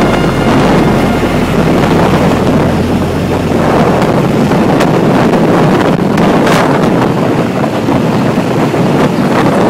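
Wind rushing and buffeting over the microphone on a moving motorcycle, mixed with the motorcycle's engine running at road speed.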